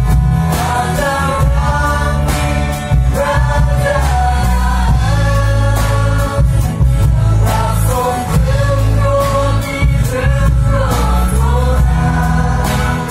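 A Garo-language gospel song sung by a small vocal group at microphones, backed by a live band with guitar, a drum kit keeping a steady beat, and heavy bass.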